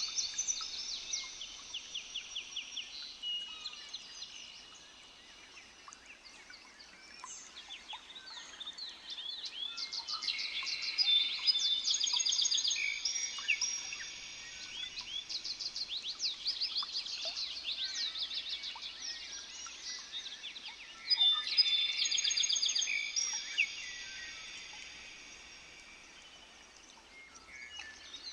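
Birds singing and calling together, many fast trilled chirps overlapping. The chorus thins out about five seconds in and again near the end, and is loudest in the middle.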